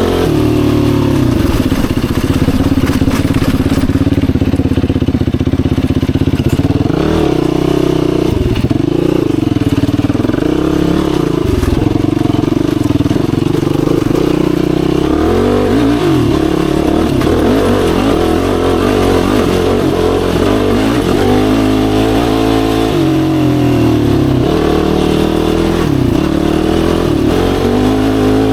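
Yamaha YFZ450R quad's single-cylinder four-stroke engine running while riding, its pitch dipping and climbing several times as the throttle is let off and opened again.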